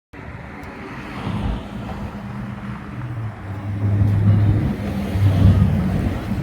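Motor vehicle engine running close by, a low steady hum with road noise that grows louder about four seconds in and again near the end.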